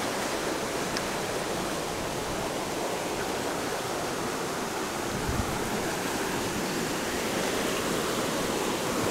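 Steady rushing of flowing river water, with a soft low thump about five seconds in.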